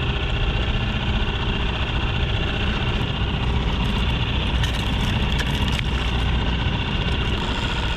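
Small four-stroke outboard motor running steadily at idle, with a few light clicks around the middle.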